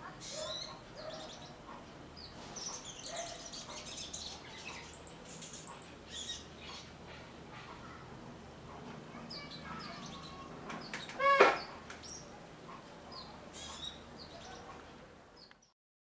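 Small birds chirping in scattered, quick, high notes. About eleven seconds in comes one short, louder call with a clear pitch. The sound cuts off shortly before the end.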